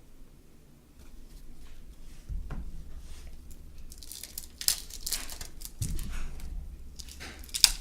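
Baseball card pack wrapper being handled, crinkling and tearing as a pack is opened. The crackling gets louder and denser about halfway through, and there are a couple of dull bumps.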